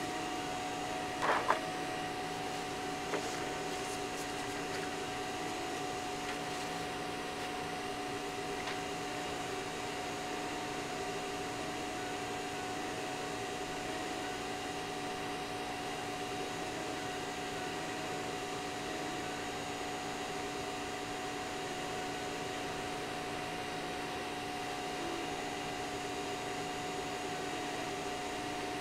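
CR-8 printer converted to a laser engraver, running a 2.5 W laser module as it burns into wood: a steady hum of the module's cooling fan and the stepper motors moving the head, with several constant tones. A few short clicks in the first three seconds.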